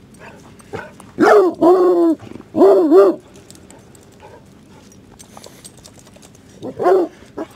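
A dog barking: a run of loud barks about a second in, then a single bark near the end.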